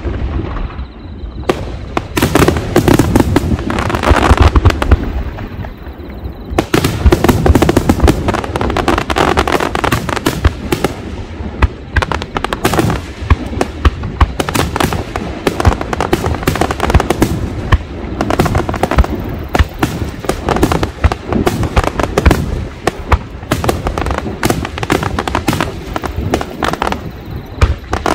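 Aerial fireworks display with shells bursting in rapid succession: sharp booming reports and crackling. After a brief lull about a second in, the reports come almost without a break.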